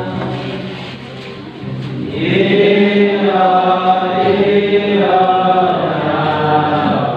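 A small group of young men singing a Christian praise song in the Nduga language, unaccompanied, in long chant-like phrases. The voices thin out about a second in and come back louder and fuller about two seconds in.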